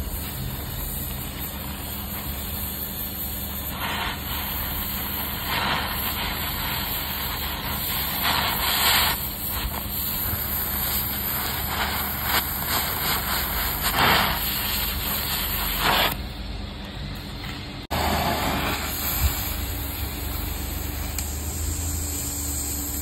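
Gas welding torch flame hissing steadily as steel bracket strips are welded with a filler rod, with several louder surges of hiss in the middle stretch over a steady low hum.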